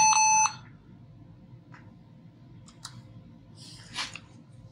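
Lenovo ThinkPad T440 laptop giving two short startup beeps right at the start, a steady electronic tone, as it passes its boot screen after the repair. Faint clicks and a brief rustle follow near the end.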